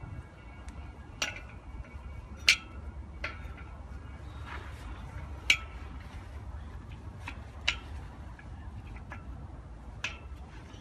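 Scattered sharp metallic clinks and ticks, a few seconds apart, the loudest about two and a half and five and a half seconds in: fence clips, screws and nuts knocking against the steel post and the PVC-coated welded wire mesh panel as they are fitted by hand, over a low steady rumble.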